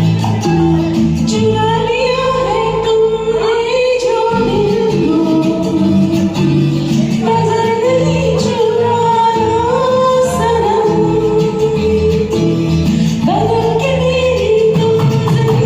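A woman singing a melody over a karaoke backing track.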